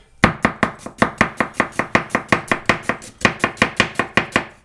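Chef's knife slicing an onion on a bamboo cutting board, the blade knocking the board in quick, even strokes about five a second, with one short break partway through.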